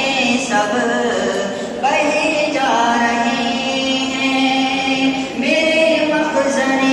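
Unaccompanied male singing of a farewell anthem (tarana), a slow melody with long held notes and gliding changes of pitch.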